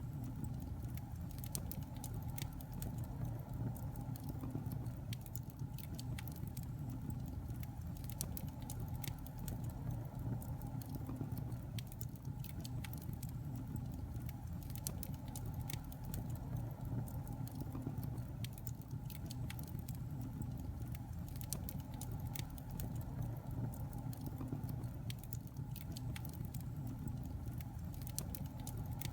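Wood fire burning in a fireplace: a steady low rush of flames with many small, irregular crackles and pops.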